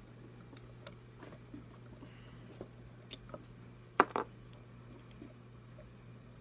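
Small hand tool and metal hardware clicking and tapping while a nut on a guitar control plate is worked loose, with a sharp double clack about four seconds in. A steady low hum runs underneath.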